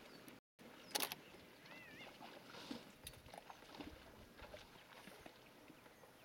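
Faint outdoor riverbank background with scattered small ticks, a single sharp crack about a second in, and a brief wavering whistle just under two seconds in.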